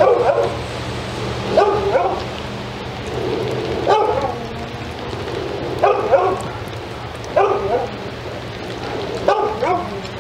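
A dog barking over and over, one short bark every second or two, with rain falling steadily in the background.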